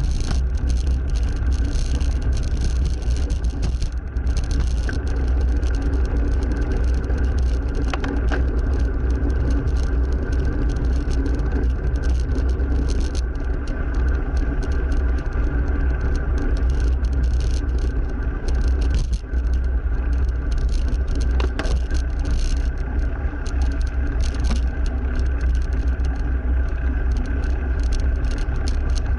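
Wind buffeting a moving bicycle's camera microphone while riding a cross bike, with road traffic (cars) running alongside. The sound is loud and steady, with no clear separate events.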